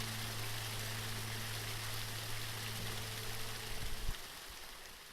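Steady rush of water from a small waterfall, under a low held note of background music that stops about four seconds in. The whole sound fades out near the end.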